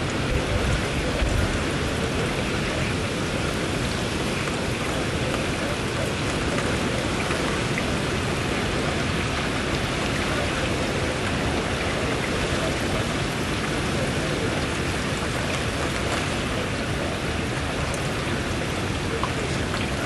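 Steady hiss of hurricane rain and wind, with a low rumble from a gust in the first second or so.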